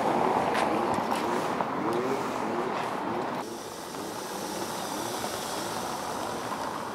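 Outdoor street noise with a run of short rising squeaks. About three and a half seconds in it changes to the steady tyre and engine noise of a Skoda Kodiaq SUV driving slowly over cobblestones.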